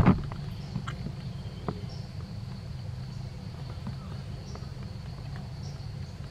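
A baby yellow-cheeked gibbon suckles at a milk bottle, with a few faint clicks over a steady low hum. A single thump comes right at the start.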